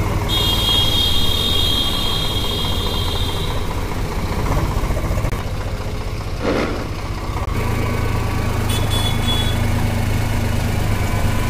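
Eicher 485 tractor's diesel engine running with a steady low drone as it drives, heard from the driver's seat. A high steady tone sounds for about three seconds near the start and again briefly later.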